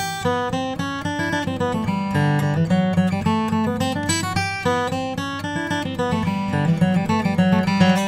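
Martin HD-28 short-scale custom, a Sitka spruce and Indian rosewood dreadnought, played fingerstyle: a steady stream of plucked notes ringing over a moving bass line.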